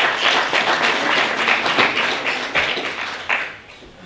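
Audience applauding, a dense patter of many hands that dies away about three and a half seconds in.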